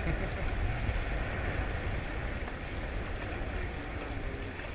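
Steady rush of water along the hulls of a Weta trimaran under sail, with wind buffeting the microphone as a low rumble.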